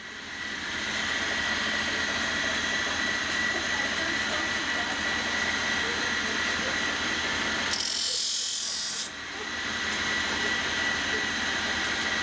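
Bar-dressing grinder's motor running with its abrasive wheels spinning free, a steady whine. About eight seconds in, a grinding hiss for about a second as a worn chainsaw bar's rail is touched to the wheel.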